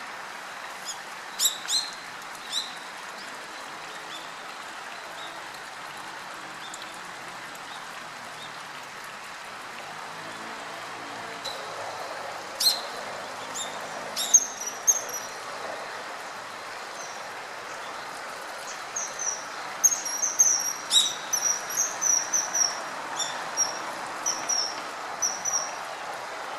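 Common kingfisher calling: short, thin, high-pitched whistled calls, a few at first and then a rapid series of them near the end, over a steady background hiss.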